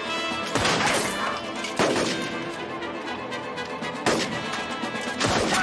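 Flintlock musket shots, about four sharp cracks spaced a second or more apart, over background music.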